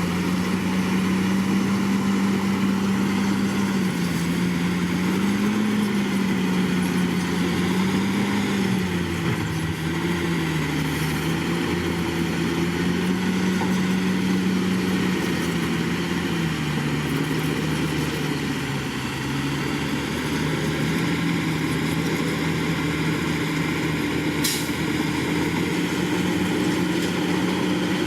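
Komatsu D61PX bulldozer's diesel engine running steadily under varying load, its pitch dipping and recovering several times. A single short sharp click sounds about twenty-four seconds in.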